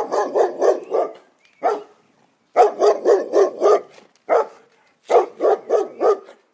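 A dog barking in three quick runs of four or five barks, with a single bark between the runs.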